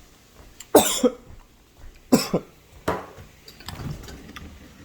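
A person coughing three times in quick succession, from the burn of a very hot Apache chili pepper just eaten.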